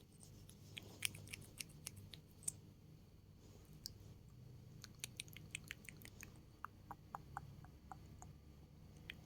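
Faint, close-up ASMR clicking and tapping: scattered sharp clicks in the first half, then, from about six and a half seconds in, a steady run of lighter taps at about four a second.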